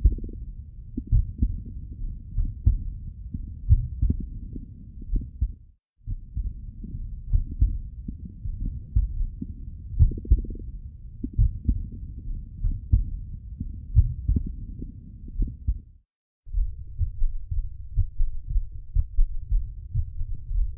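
Heart sounds from an animal's chest, heard through a stethoscope: quick repeating low thumps, cut by two brief silent gaps, about a third of the way in and again about three-quarters through, where one recording gives way to the next.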